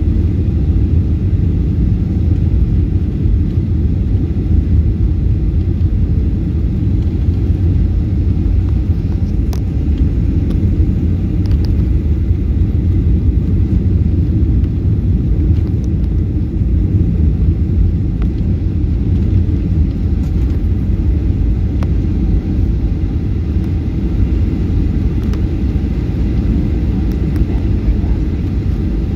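Steady low rumble of a Boeing 737-800 heard inside the passenger cabin: its CFM56 turbofan engines and the airflow over the airframe, on approach with the flaps extended.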